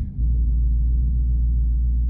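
Supercharged Gen 3 Coyote 5.0 V8 of an S550 Mustang GT cruising with its active exhaust open, heard from inside the cabin as a steady low drone.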